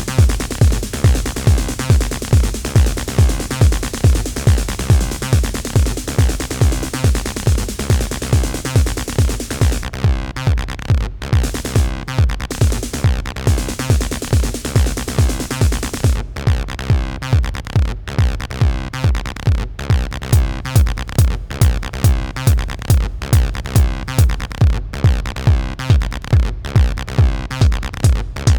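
Acid house played on a Behringer RD-9 drum machine (a TR-909 clone) and a Behringer TD-3 bass synthesizer (a TB-303 clone): a steady four-on-the-floor kick, about two beats a second, under a repeating synth bassline. About a third of the way in the hi-hats and high end drop out, and they come back about halfway through as sharp ticks.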